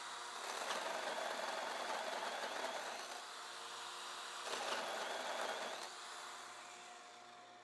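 A corded drill's hole saw cutting into a spinning wood blank on a lathe to rough out a wooden ball, over the steady hum of the lathe and dust collector. The cutting noise swells twice, for about three seconds and then a second and a half, then fades away near the end.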